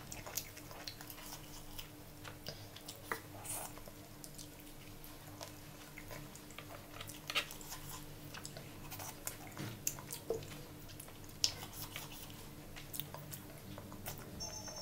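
Close-up eating sounds: soft wet chewing and scattered small clicks and squelches as fingers work curry-soaked rice and pull apart chicken pieces. A faint steady hum runs underneath.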